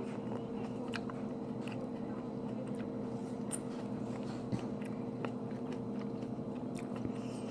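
A person biting into and chewing green grapes, with scattered small crisp crunches and clicks, over a steady low hum.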